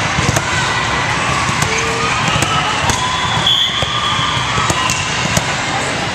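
Busy volleyball hall: a steady din of many voices with scattered sharp smacks of volleyballs being hit and bouncing on the courts, and a brief high-pitched tone about three and a half seconds in.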